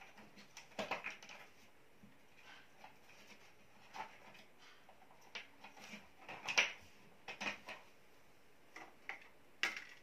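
Light, scattered clicks and rustles of hands working the wires at a ceiling electrical box, the loudest click about two-thirds of the way through.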